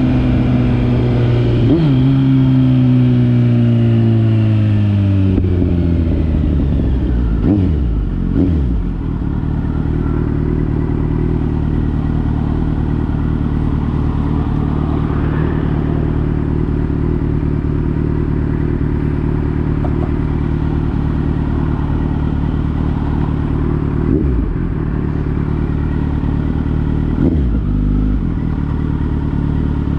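Kawasaki Z900's inline-four engine through an aftermarket Akrapovič-replica exhaust. The revs fall away over the first few seconds, then the engine settles into a steady idle.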